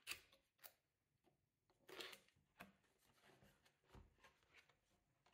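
Faint rustles and taps of a cardboard product box being handled and opened, its paper sleeve slid along, with a longer rustle about two seconds in and a soft thump about four seconds in.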